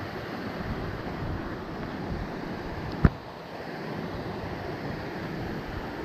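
Creek water rushing steadily, with one sharp knock about three seconds in.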